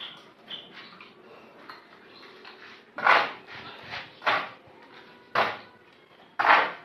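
Steel shovel blade scraping and scooping damp cement-and-sand dry pack mix across a concrete floor. Quieter scrapes come first, then four loud scrapes about a second apart in the second half.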